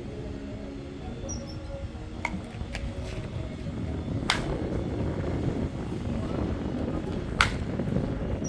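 Baseball bats striking balls in batting practice: two sharp cracks about three seconds apart, with a couple of fainter hits before them, over a steady low rumble.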